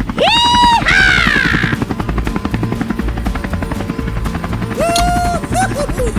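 A fast, steady mechanical chopping rhythm like rotor blades, with two short pitched calls that slide up and hold, one near the start and one about five seconds in.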